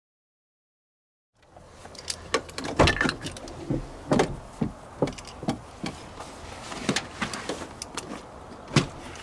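Silence for about a second and a half, then a run of irregular clicks and knocks over a low steady hum.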